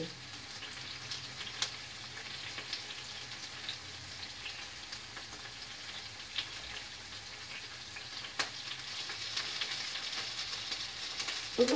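Chopped peppers frying in oil in a pan: a steady sizzle with scattered pops, growing a little louder near the end.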